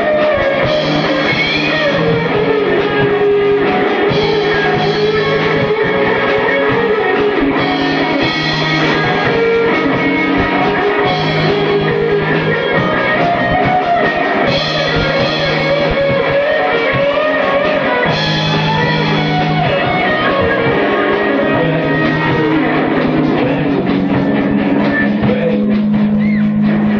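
A rock band playing live: electric guitars, bass guitar and drum kit, with a singer's lead vocal over them.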